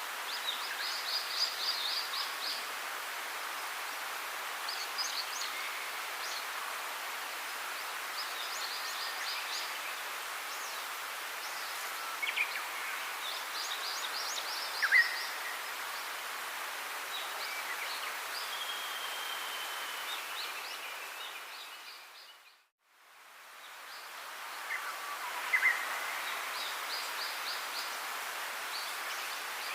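Outdoor bird ambience: small birds chirping and trilling now and then over a steady hiss. It fades out to silence about three-quarters of the way through and fades back in.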